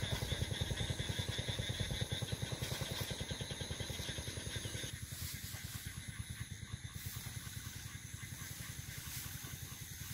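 A small engine running steadily with a fast, even throb, a little thinner from about halfway through.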